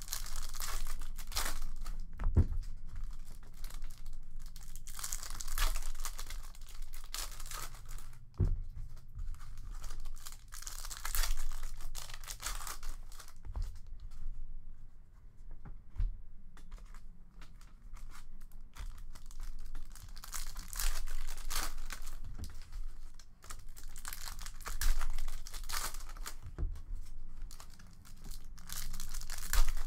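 Trading card pack wrappers being ripped open and crinkled, pack after pack, in repeated spells of tearing with a few sharp knocks in between.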